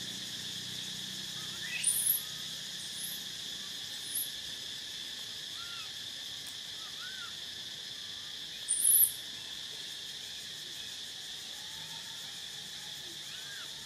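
A steady high insect drone of forest cicadas or crickets. Over it come a few short rising-and-falling calls, and two louder, sharp high-pitched chirps, one about two seconds in and one near the middle.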